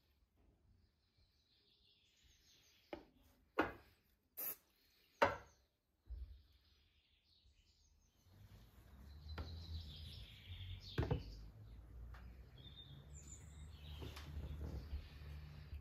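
Hollow bamboo tubes knocking and clicking as they are handled and set down on a wooden workbench: four sharp knocks a few seconds in. From about halfway a low steady hum comes in under the handling.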